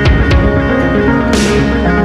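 Background music with sustained notes, two sharp drum hits at the start and a short cymbal-like swell about a second and a half in.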